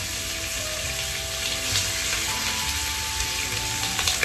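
Pork pieces sizzling steadily in hot caramelized sugar and oil in a frying pan, the burnt-sugar browning step of a Dominican pork stew.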